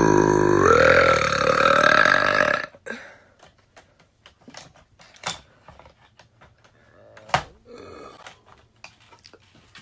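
A woman's long, loud burp, its pitch rising partway through, that cuts off just under three seconds in. After it come only faint clicks and rustles, with one sharper click a little after seven seconds.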